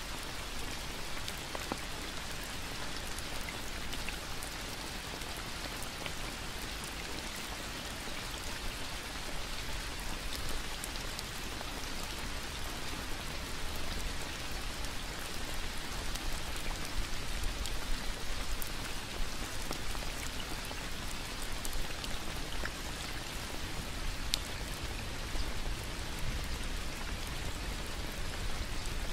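Steady rain falling, an even hiss with scattered sharper ticks of single drops landing.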